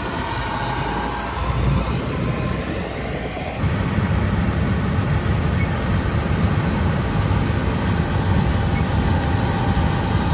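Large diesel farm machine running steadily, with a deeper, louder rumble from about three and a half seconds in.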